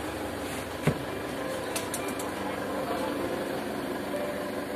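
Truck camper's wooden pull-out bed platform being pulled out by hand: one sharp knock about a second in, then a few faint clicks, over a steady background hum.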